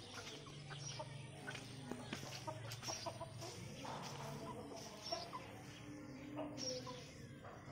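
A flock of Aseel chickens clucking, with many short calls from several birds scattered throughout.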